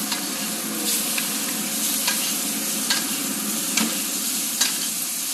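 Top sirloin steak sizzling in hot browned butter with rosemary while a spoon bastes it with the pan juices, the spoon clicking against the pan about once a second.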